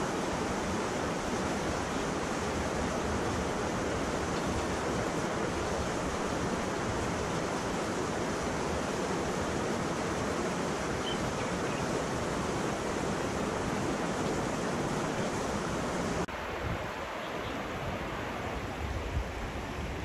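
Steady rush of river water running over shallow rapids, close to the microphone. About 16 seconds in it cuts abruptly to a quieter, duller hiss of open air.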